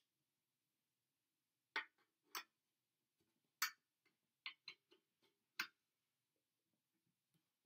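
Brass trombone valve slide being fitted back into the valve section: a series of short, sharp metallic clicks and clinks, about eight in all, bunched between roughly two and six seconds in.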